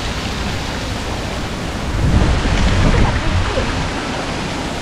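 Wind buffeting the microphone with a rumbling low flutter over the steady rush of small waterfalls pouring into a rock pool; a stronger gust comes about two seconds in.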